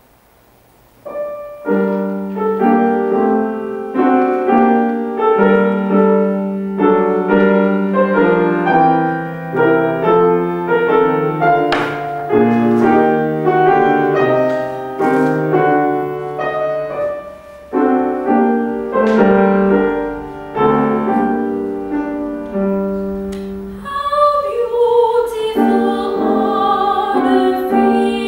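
Grand piano playing a classical accompaniment, starting about a second in. Near the end a woman's voice joins, singing in classical style with vibrato.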